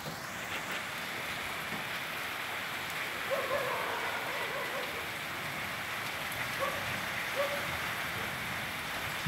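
Steady rain falling in a thunderstorm, an even hiss of rain on roofs and ground.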